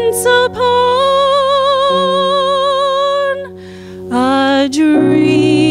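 A woman singing a slow song over piano accompaniment, holding long notes with a wavering vibrato; she breaks briefly between phrases a little past halfway, then comes back in on another held note.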